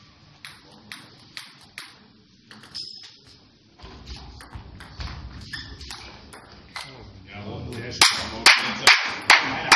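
Table tennis ball clicking on bats and table as a point is played, with voices in the middle. Near the end come five loud sharp clacks about half a second apart.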